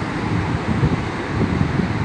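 Rough, choppy sea: surf churning steadily against the shore, with wind buffeting the microphone.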